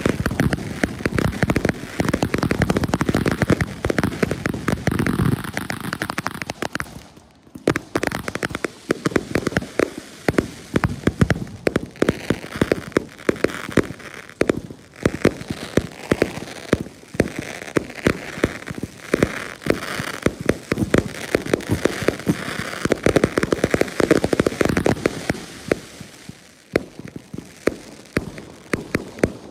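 Consumer firework cakes firing in a continuous barrage: rapid bangs from the shots and their bursting stars, mixed with crackling. There is a brief lull about seven seconds in and another near the end.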